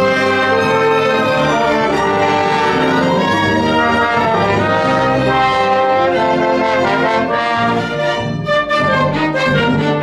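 Symphony orchestra playing loudly, with brass (trumpets and trombones) to the fore over the full ensemble.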